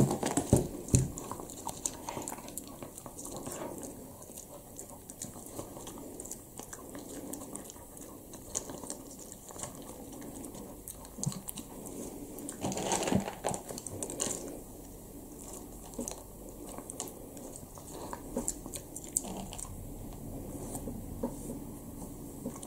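Shiba Inu eating dry kibble off a table, crunching and chewing the pieces in short, irregular clicks, with a louder patch of crunching about halfway through.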